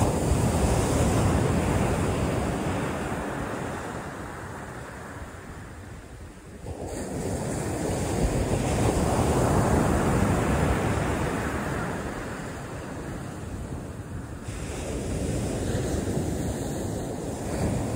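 Ocean surf breaking and washing up the beach, swelling and fading slowly as each set of waves comes in, with wind buffeting the microphone.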